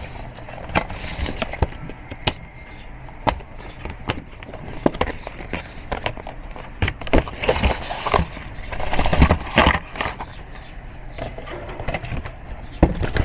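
Cardboard boxes and plastic wrapping being handled: rustling and crinkling with a string of light taps and knocks as small boxes are pulled out and set down on a desk, busiest about seven to ten seconds in.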